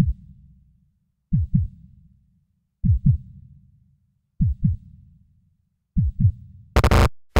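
Heartbeat sound effect: slow lub-dub pairs of deep thumps, one pair about every one and a half seconds. Near the end, loud harsh bursts of noisy electronic sound cut in with short gaps between them.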